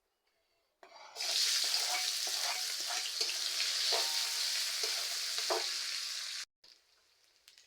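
Food sizzling and frying in a hot pan while being stirred, with a utensil knocking against the pan now and then. It starts about a second in and cuts off suddenly near the end.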